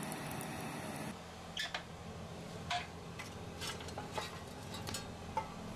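Steady rushing noise of fire burning in a home coal boiler's firebox. About a second in it changes to a quieter background with scattered sharp crackles and ticks at the open furnace door, as shovelfuls of coal are thrown onto burning wood.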